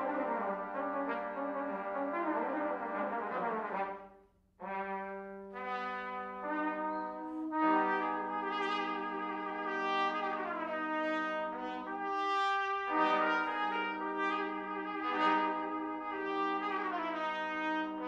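Ensemble of two C trumpets, two B-flat trumpets and two flugelhorns playing held chords. About four seconds in the music breaks off for half a second, then resumes with the parts coming in one after another and building back to full sustained chords.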